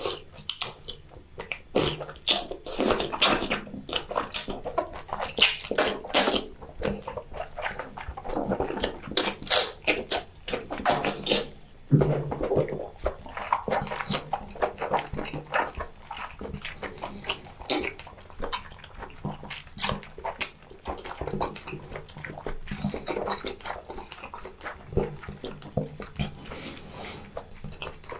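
Close-miked wet slurping and chewing of a sauce-coated boiled seafood tentacle, a dense run of squelches and sharp mouth smacks.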